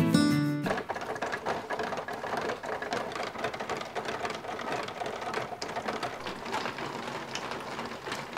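Acoustic guitar music cuts off under a second in. Then comes a steady patter of many small, irregular water drips falling from drip emitters and tray drain slots onto plastic seed trays and into a vinyl gutter.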